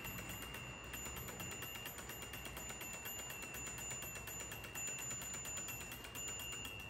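HO-scale model freight train running on its track: a rapid, even clicking of wheels over the rail joints and the train's mechanism, with a steady high-pitched whine underneath. The clicking fades near the end as the last cars move away.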